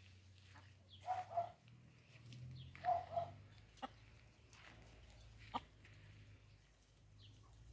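Chickens clucking: short two-note calls about a second in and again near three seconds, with a couple of sharp clicks later, over a low steady hum.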